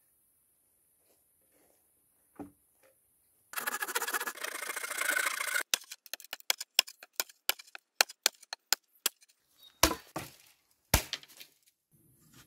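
Hatchet chopping a wooden stick: a quick run of sharp wooden strikes, about three to four a second, ending with a few heavier blows. Before the chopping comes a couple of seconds of dense scraping rustle.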